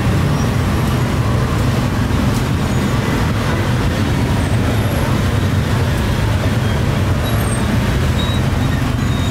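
Steady low rumble of road traffic and running engines, unbroken at an even level, with a few faint clicks.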